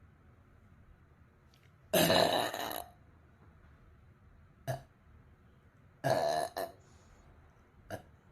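A young woman burping: a long loud burp about two seconds in and another about six seconds in, with two short sounds between them.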